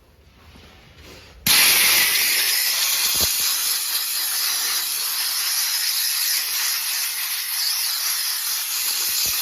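Compressed-air blow gun hissing steadily, blowing wood-chip dust off oiled forged pieces. It starts suddenly about a second and a half in.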